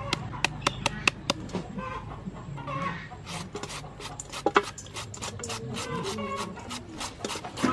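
A knife blade hacking quick scoring cuts into an unripe mango, sharp even taps about four or five a second, which stop after about a second and a half. A shredding peeler then scrapes thin strips off the mango into a stainless steel bowl, with irregular scraping and clicks. Clucking calls come in the background.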